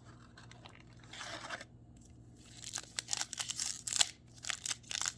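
Crinkling and tearing of a trading-card pack's foil wrapper being opened by hand, faint at first, then a dense run of sharp crackles from about halfway through.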